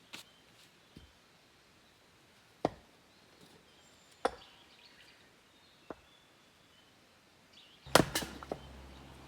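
Wood being chopped or split: single sharp strikes spaced well apart, then a quick run of louder hits near the end.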